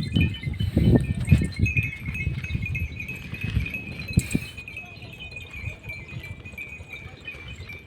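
Small metal bells on a flock of sheep and goats tinkling continuously, over irregular low-pitched noise that is strongest in the first couple of seconds and then dies down.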